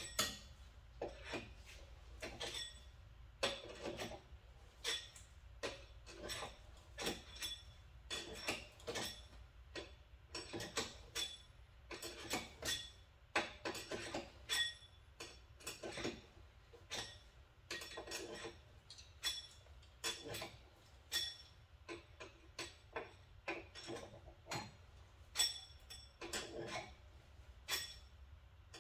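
Hand tools and sidecar mounting hardware clinking and knocking together, irregularly, one or two strikes a second, many with a short metallic ring.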